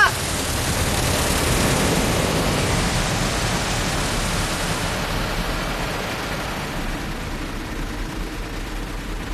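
Water jets of an automatic car wash spraying onto the car, heard from inside the cabin as a steady rushing hiss that slowly eases off over the second half.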